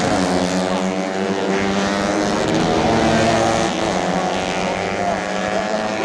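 Several tuned 130cc four-stroke underbone racing motorcycles running hard at high revs, their engine notes overlapping and rising and falling in pitch.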